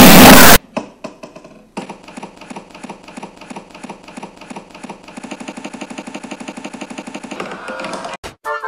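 Edited, distorted audio: a very loud blast of harsh noise, then a fast, evenly repeating stutter of one short sound looped many times a second. The stutter gets denser partway through and ends in a brief held tone.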